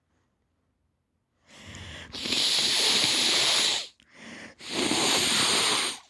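Nose blown hard into a handkerchief: two long, hissing blows of nearly two seconds each, starting about a second and a half in, from a stuffy, runny nose with a cold.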